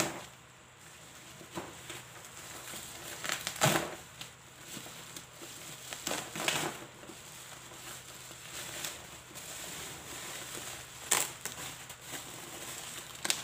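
Plastic shipping wrap crinkling and rustling as a parcel is pulled open by hand, with a few louder crackles along the way.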